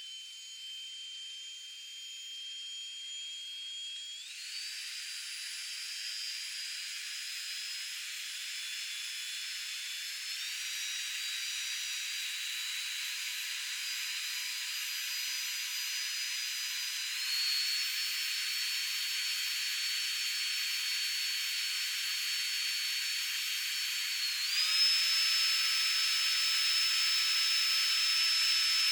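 NITECORE NEF nano's small high-speed motor whining over a hiss of rushing air. It steps up in pitch and loudness four times, every six or seven seconds, as it moves up through its speed settings.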